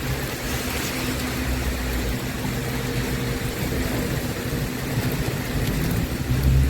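A vehicle engine running steadily with a low hum over a constant hiss of heavy rain, the hum growing stronger near the end.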